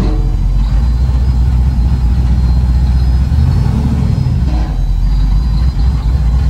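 A large truck engine running with a deep, steady rumble that swells briefly about halfway through.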